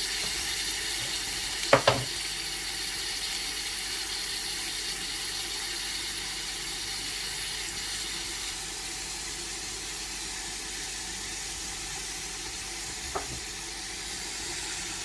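Chicken pieces frying skin-down in their own rendered fat in a large pot, a steady sizzle. Two sharp knocks come about two seconds in and a lighter one near the end.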